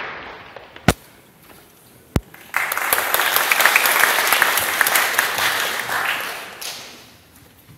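Audience applauding, starting about two and a half seconds in and dying away near the end. Two sharp knocks come before the clapping.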